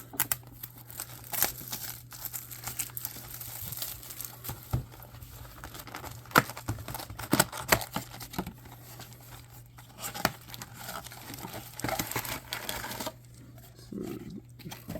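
Packaging of a trading-card box being handled and torn open: plastic and paper crinkling and tearing, with scattered clicks and taps.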